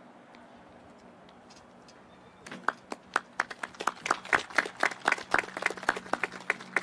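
A few people clapping by hand, starting about two and a half seconds in after a quiet stretch; each clap stands out on its own rather than blending into a crowd's applause.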